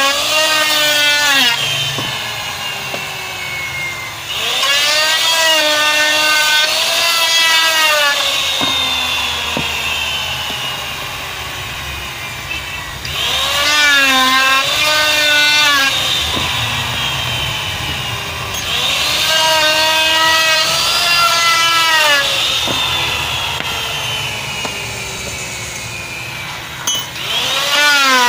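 Handheld electric router rounding off the square head of a wooden sickle handle. Its motor whine dips in pitch as the cutter bites into the wood and climbs back as it frees, in repeated passes about every six seconds, with quieter cutting noise between them.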